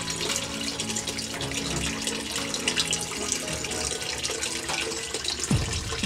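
Running water splashing steadily, like a small aviary fountain or open tap.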